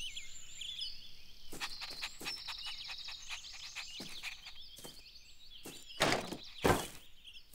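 Cartoon garden ambience of chirping birdsong, with a few light knocks. Two louder thuds come about six seconds in and just before seven seconds, as the doghouse's wooden name sign knocks loose.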